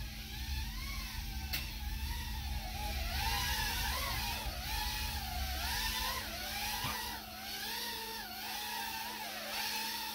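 Happymodel Mobula tiny whoop quadcopter in flight: its small brushless motors and ducted propellers give a buzzing whine that keeps rising and falling in pitch as the throttle is worked.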